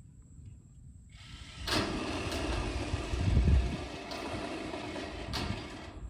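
Cordless drill running, driving screws through corrugated metal roofing sheet, with a few sharp clicks.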